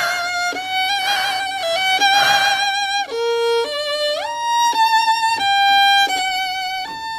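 A solo violin playing a slow melody, one note at a time with held notes and a slide up to a higher note about four seconds in.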